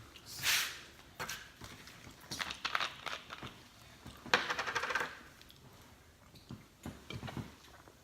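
Close-up eating sounds: scattered bursts of chewing and wet mouth clicks from fast-food eating. The loudest burst comes about four and a half seconds in.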